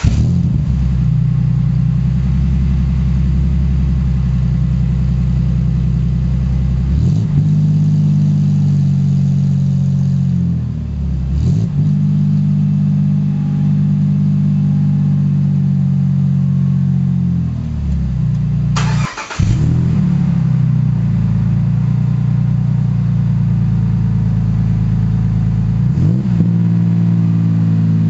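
Jeep KK Cherokee engine idling just after starting, its exhaust running through dual 2.25-inch pipes into a stainless Magnaflow muffler with no tailpipe fitted. The throttle is blipped briefly about four times, the note rising and falling back to idle each time.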